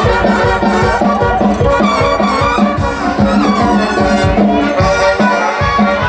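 Carnival dance music from a brass band: held brass notes over a quick, steady drum beat.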